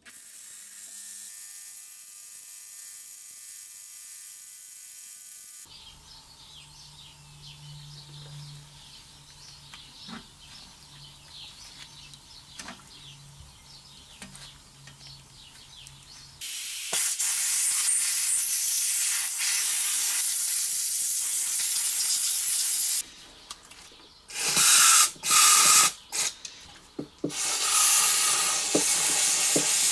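Ultrasonic cleaner running, a steady low hum with fine crackling from the bath. About halfway through, a loud steady aerosol spray hiss begins, followed near the end by several short, loud spray bursts.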